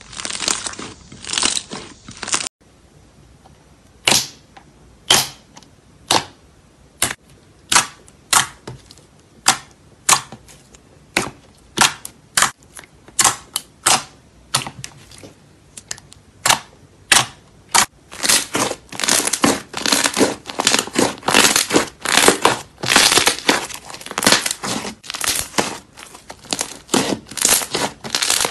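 Glossy purple slime poked and pressed by fingers, making sharp clicking pops as air pockets burst: about one a second at first, then quick, dense clicking in the last ten seconds. For the first couple of seconds, a thicker tan slime squishes as it is kneaded.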